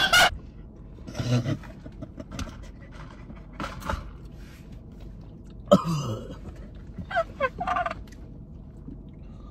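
Short bursts of stifled laughter, gasps and coughs from two people, with one louder falling vocal sound about six seconds in and a quick run of laughing sounds just after. The man is coughing and gasping from the burn of a cayenne-spiced drink.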